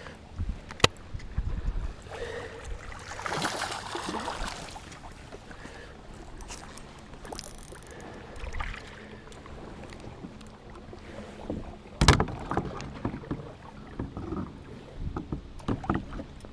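Sounds of handling aboard a fishing kayak: water splashing and scattered sharp knocks on the hull, the loudest knock about twelve seconds in.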